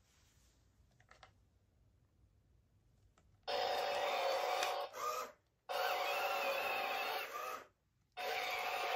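A few faint clicks, then the U-Command Wall-E toy robot plays electronic sounds through its small speaker in three bursts of about two seconds each. Each burst starts and stops abruptly, with steady tones and wavering beeps.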